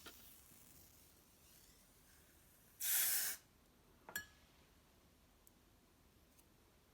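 A single short hiss lasting about half a second, about three seconds in, followed about a second later by a sharp click; otherwise quiet.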